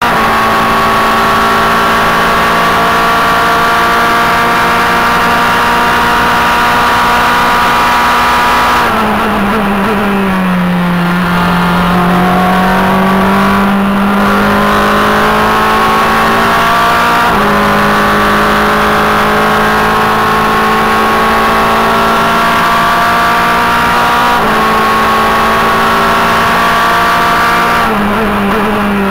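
Formula Renault 2.0 race car's four-cylinder engine at full throttle, heard onboard. It holds high revs down a straight, then falls in pitch through downshifts under braking about nine seconds in. It climbs again with sharp upshift steps about seventeen and twenty-four seconds in, and comes off again under braking near the end.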